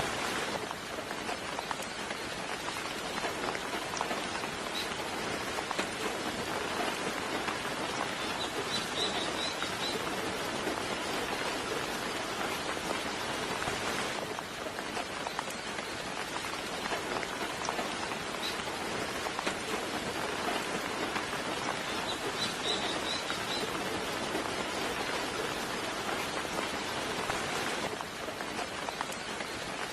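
Steady, gentle rain falling, with a small bird chirping faintly a few times over it: short high chirps, and two brief chirping runs about 9 and 23 seconds in.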